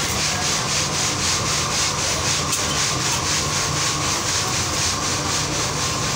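Steady dry rasping with an even rhythm of about four to five strokes a second, over a continuous low machine hum.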